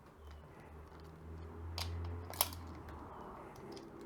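Bolts holding a classic Vespa's split rim together being loosened with a tool: a few sharp metallic clicks, the loudest about two and a half seconds in, over a low hum that swells and fades.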